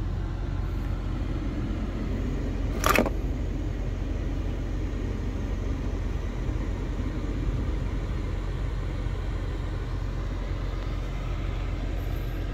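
GMC Sierra pickup idling, heard from inside the cab as a steady low rumble, with one sharp knock about three seconds in.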